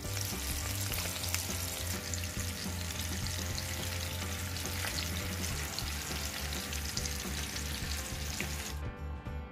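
Chicken drumsticks frying in vegetable oil in a pan, sizzling and crackling steadily; the sizzle cuts off suddenly shortly before the end.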